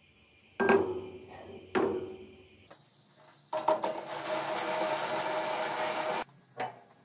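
Two ringing metal clanks as a rusty round steel bar is set down on the lathe carriage. A few seconds later comes a steady whir with a held tone from the lathe's chuck area, lasting about three seconds and cutting off suddenly, then a small click.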